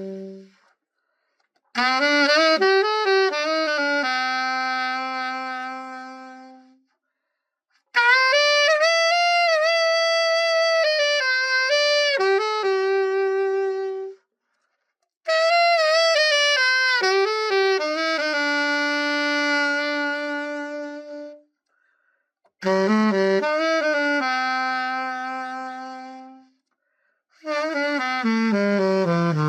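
Yanagisawa A-W02 alto saxophone played solo in short melodic phrases, each ending on a long held note, with brief silences between them: the fully overhauled horn being play-tested.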